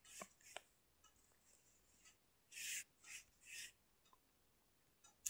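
Near silence: two faint clicks early on, then a few soft, faint rustles around the middle.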